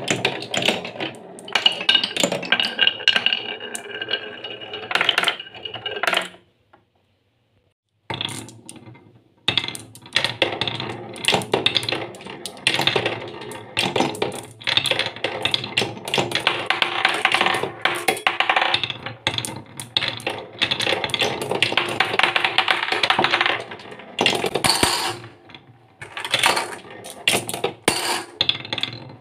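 Glass marbles rolling down wooden marble-run tracks and spinning round a wooden funnel cut with concentric grooves: a continuous clattering rattle dotted with sharp clicks of glass on wood, with some ringing. The sound cuts out completely for a moment about a quarter of the way through, then the rattling resumes.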